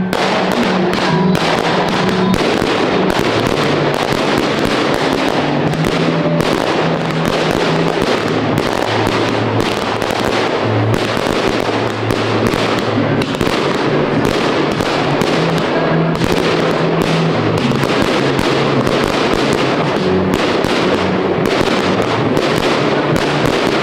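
Fireworks display: aerial shells and comets bursting in rapid succession, a dense run of sharp bangs and crackles, several a second, with music playing underneath.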